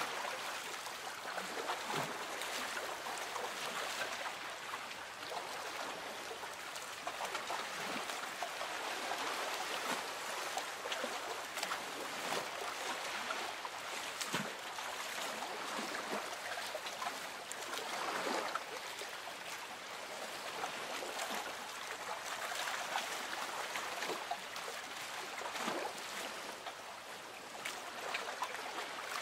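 Water gently lapping against a boat's hull, with a soft slosh every few seconds over a steady watery wash.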